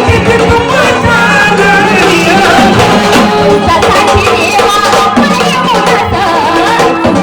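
Traditional Marathi gondhal devotional song to Khandoba: a woman singing over sambal drumming and an electronic organ, loud and continuous.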